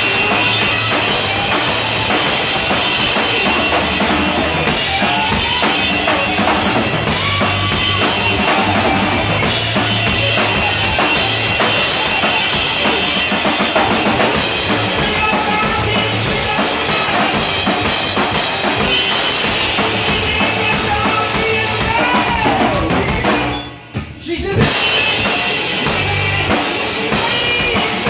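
Loud rock music driven by a full drum kit with bass drum and snare. Shortly before the end it drops out for about a second, then comes back in.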